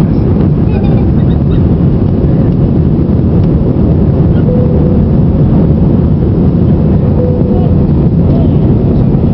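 Steady, loud cabin roar of an Airbus A320-family airliner's jet engines and rushing airflow, heard from a window seat as the plane climbs out after takeoff.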